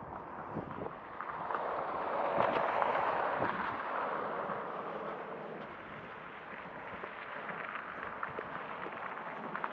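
A vehicle passing on the road, its tyre and road noise swelling to a peak two to three seconds in and then fading away. Footsteps on paving stones tick lightly throughout.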